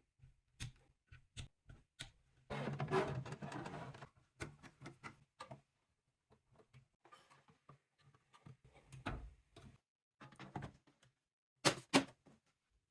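Computer parts being handled during assembly: scattered small clicks and taps, a scraping rustle lasting over a second about two and a half seconds in, and two sharp clicks near the end.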